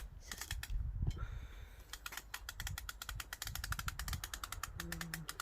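Ratchet of a parasol's winding crank clicking rapidly, about eight to ten clicks a second, as the handle is turned to raise the canopy, with a short pause in the first second.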